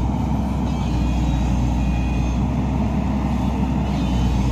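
Excavator's diesel engine running steadily under load as its arm pushes a large wooden fishing boat across the sand, a continuous low rumble.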